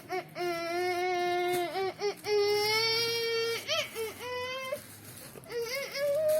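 A single melodic line of long held notes with short slides in pitch between them, from a street band's lead part.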